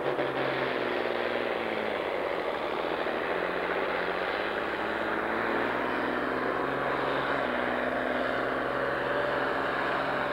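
International Harvester 1466 tractor's turbocharged six-cylinder diesel running hard under full load as it pulls a weight-transfer sled, a steady, heavy engine sound throughout.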